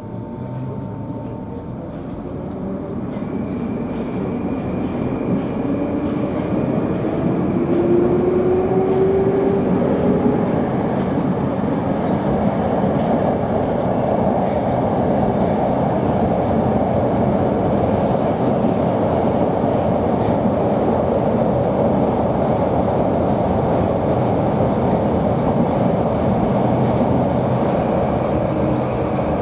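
Metro train heard from inside the carriage, pulling away and picking up speed: a traction-motor whine rises in pitch over the first several seconds as the running noise grows louder, then the train runs on at speed with a steady loud rumble.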